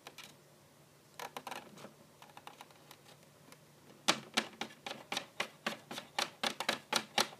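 Keyboard typing: a few light clicks about a second in, then a quick run of keystrokes from about four seconds in.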